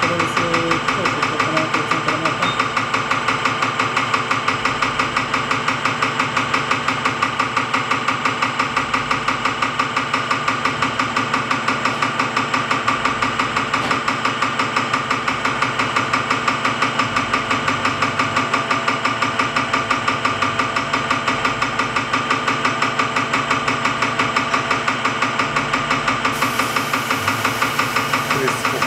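Bosch unit injector (pump-nozzle) running on a diesel injector test bench, giving a steady, rapid rhythm of even knocks over a constant machine hum. A high hiss joins near the end.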